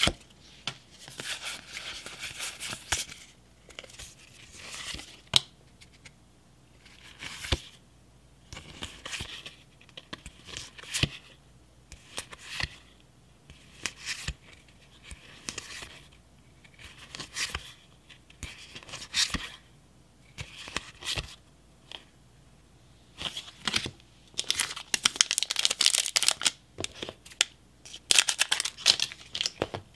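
Pokémon trading cards being handled and slid one by one through a stack, a short rustle about every second with light taps between. Near the end, a louder stretch of crinkling foil as a booster pack is handled and cut open with scissors.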